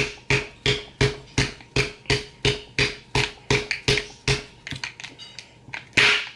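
The handle of a makeup brush striking a small glitter container over and over, sharp knocks about three a second with a short ringing note, as she tries to force it open. Near the end comes one louder crack as it gives way.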